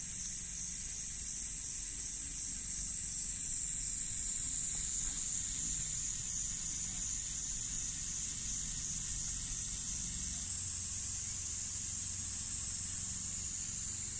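Agrodrip pop-up spray sprinklers watering a lawn, giving a steady high hiss of water spraying. The hiss shifts slightly about ten seconds in.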